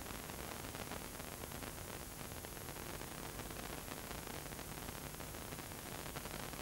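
Audio from a blank VHS tape playing back: steady static hiss with fine crackling throughout.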